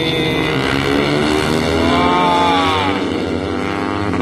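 Racing motorcycle engines passing on the track, several at once. One bike's note climbs to a peak about two seconds in and then drops away.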